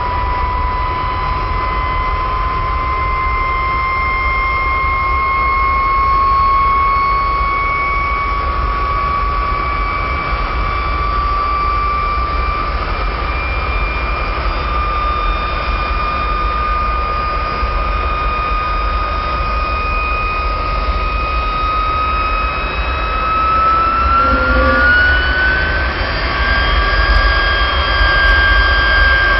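Jet engine running: a steady turbine whine over a low rumble, the whine creeping slowly up in pitch and then climbing higher about three quarters of the way through.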